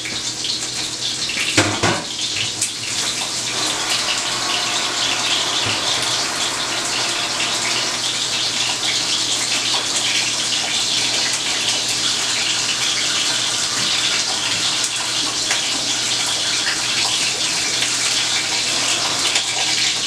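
Flour-dredged chicken breast sizzling steadily in hot olive oil in a cast iron skillet, with occasional small crackles.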